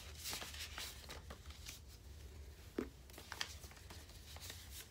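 Paper and tissue packing rustling as items are handled, in short scattered rustles, with two sharper clicks about three seconds in.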